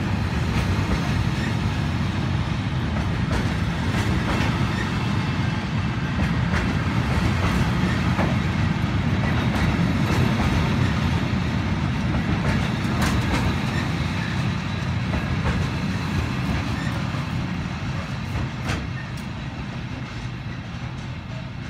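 Loaded bogie china-clay hopper wagons of a freight train rolling past: a steady rumble of wheels on rail with occasional clicks over rail joints. It fades over the last few seconds as the end of the train moves away.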